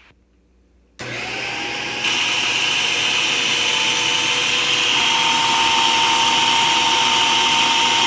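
Electric kitchen chopper ricing raw cauliflower: the motor switches on about a second in, its whine rising as it spins up, then steps louder a second later and runs steadily.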